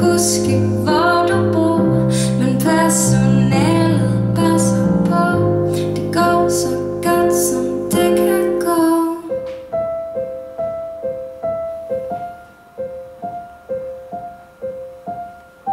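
Female voice singing over a Casio digital piano playing full chords with bass. About nine seconds in, the singing and bass stop and the piano plays a soft repeated two-note figure, about two notes a second, growing quieter as the song ends.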